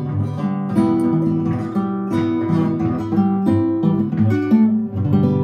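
Background music: acoustic guitar playing a plucked, strummed tune with no singing, ending on a chord that rings and fades near the end.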